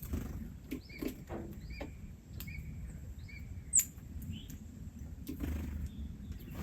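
Small birds chirping: a string of short, high chirps at irregular spacing, with a few clicks and one sharper, louder high note just under four seconds in.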